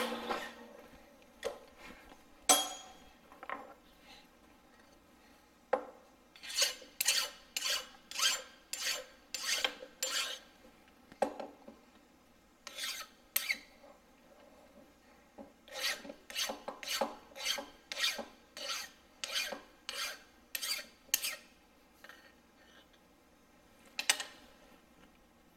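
Hand file stroked across the milled edges of a metal block, deburring it: runs of short rasping strokes about two a second, with pauses between the runs. A couple of sharp knocks come before the filing starts.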